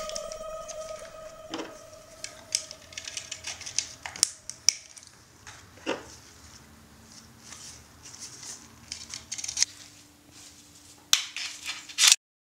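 A pistol and its small parts being handled in gloved hands: scattered small metallic clicks and light rustling, with louder sharp clicks near the end.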